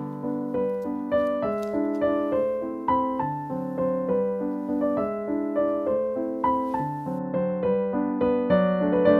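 Background piano music: a gentle melody of struck notes over chords, about two notes a second, each note fading before the next.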